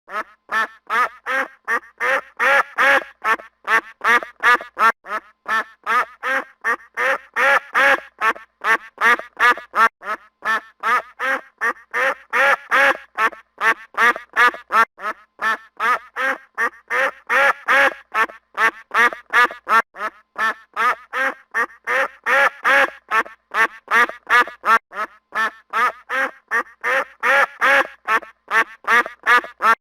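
Geese honking in a fast, unbroken run of calls, about three a second, swelling louder every five seconds or so.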